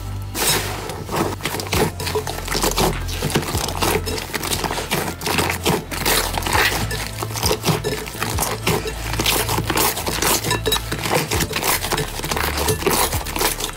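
Slime being squeezed and pressed by hand, a dense run of small irregular crackles and pops, over quiet background music.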